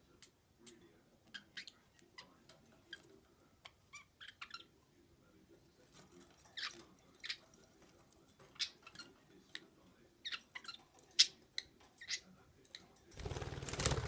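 Pet budgerigars (budgies) making short, scattered chirps, one after another at uneven intervals. A burst of rustling noise comes near the end.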